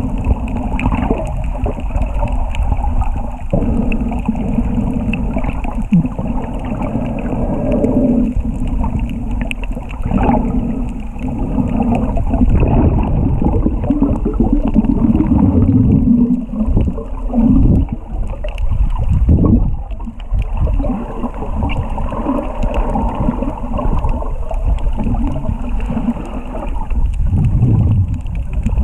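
Muffled, rumbling water noise with gurgling that swells and surges, with nothing crisp or high above it.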